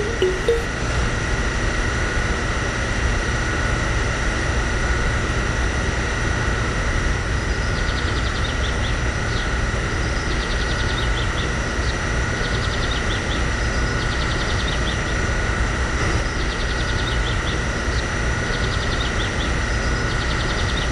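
Small electric pump motor of a miniature home-made petrol pump running steadily, a constant noise with an even high whine, while it dispenses into a toy tractor.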